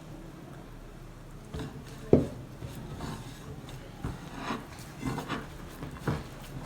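Hands working shortcrust pastry dough to bring it together after a little water has been added, with rubbing and scattered light knocks, and one sharper knock about two seconds in.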